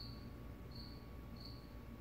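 Ceiling fans running with a faint, steady low hum as the Canarm CP-36 coasts down after being switched off. A short, high chirp repeats about every 0.7 s.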